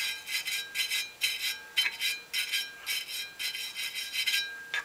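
Small wire brush scrubbing a copper pipe back and forth in quick strokes, about three a second, the pipe ringing faintly under it: cleaning the copper back to bare metal so that silver solder will stick.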